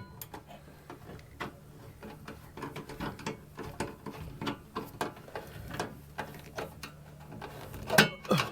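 Screwdriver tightening screws on an electrical receptacle and its box: an uneven run of small metal clicks and scrapes, a couple each second, with a louder clatter near the end.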